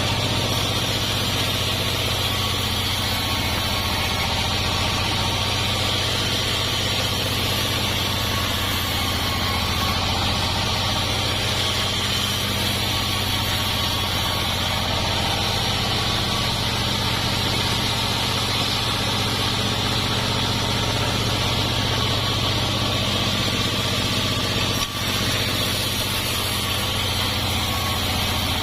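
Homemade sawmill running steadily, its motor giving a low hum under a steady hiss, with one brief dip near the end.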